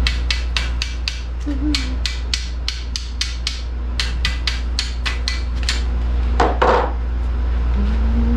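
Hammer tapping on a steel chair frame: quick light metallic taps, about four a second, in several short runs, with a louder clatter about six and a half seconds in. A steady low hum runs underneath.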